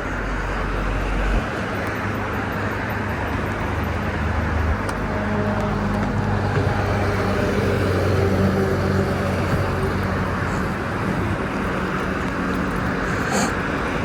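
Road traffic: a vehicle's engine hum and tyre hiss on a wet road swell to a peak about halfway through, then ease off.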